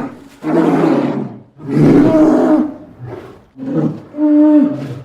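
A large animal giving a series of loud roaring calls, about five in quick succession, each about a second long or shorter.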